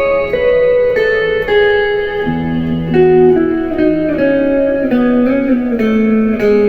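Ibanez JEM7V electric guitar played through a clean tone: a melodic line of single notes, some sliding into the next, with a lower note ringing under it from about two seconds in.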